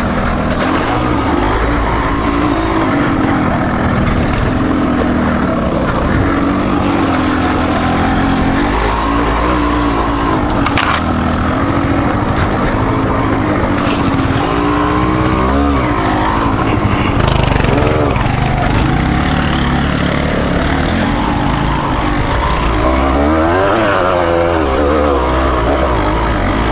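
Off-road motorcycle engine running steadily on a trail ride, the revs rising and falling again and again as the rider works the throttle, with a single sharp click about eleven seconds in.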